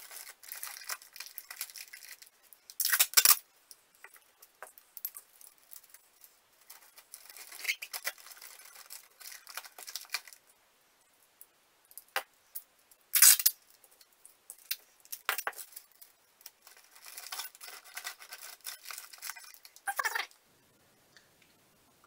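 Thin plastic shopping bag crinkling as it is handled and pressed onto a cardboard box, with three short, loud rasps of packing tape being pulled off the roll: a few seconds in, about midway, and near the end.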